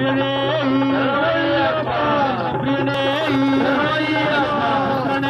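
Indian devotional song: a voice singing held, gliding melody lines over a steady drone.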